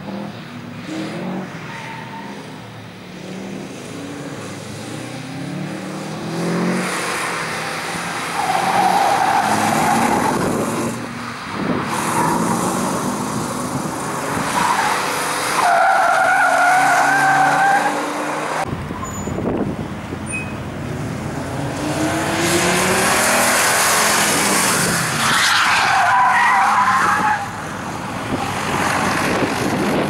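Audi 90 quattro B2's five-cylinder engine revving up and down as the car slides through corners, its tyres squealing three times, each for a couple of seconds.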